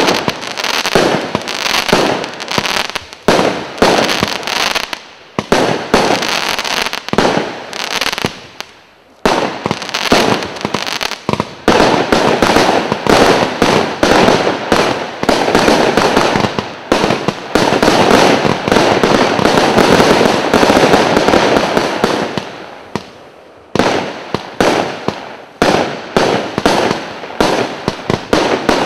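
Kimbolton 'Hell Yeah!' 1.3G firework barrage firing a rapid string of shots and bursting bangs. About a third of the way in, the shots merge into a dense, almost unbroken barrage lasting about ten seconds. After a short pause near the end, separate shots start again.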